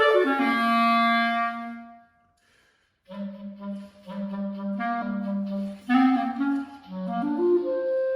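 Solo clarinet playing a phrase. It runs quickly down to a held low note, breaks off for about a second, then plays a lively line of short notes that settles onto a long held note near the end.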